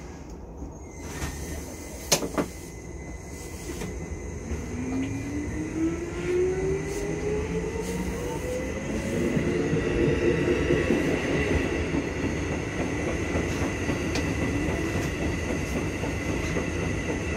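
Keikyu 1500 series electric train pulling away and accelerating, heard from just behind the driver's cab. Two sharp clicks come about two seconds in. From about four seconds in, the traction motor whine rises steadily in pitch over wheel and running noise that grows louder.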